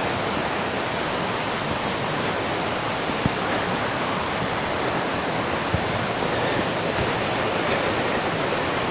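Steady rushing of flowing stream water, with a few faint clicks.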